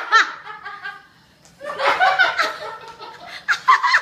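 People laughing in three bursts, at the start, around the middle and near the end.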